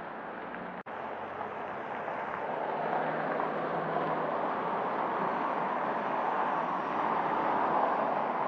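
Car going by on a wet street: a steady hiss of tyres on wet asphalt that slowly swells over several seconds. The sound cuts out for an instant about a second in.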